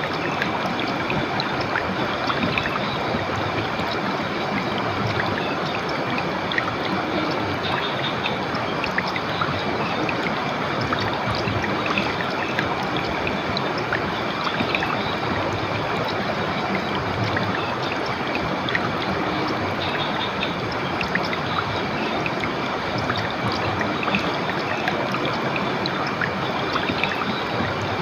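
River water running steadily, a continuous even rush and trickle.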